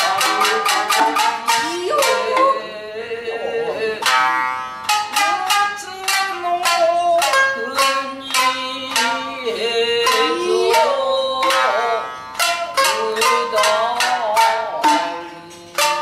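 Nagauta: two shamisen plucked in quick runs, accompanying a woman's sung melody with sliding, held notes.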